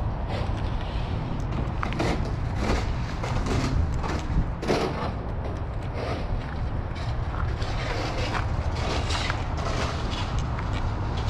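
Footsteps in snow, a steady series of short creaking steps about one to two a second, over a low rumble of wind buffeting the microphone.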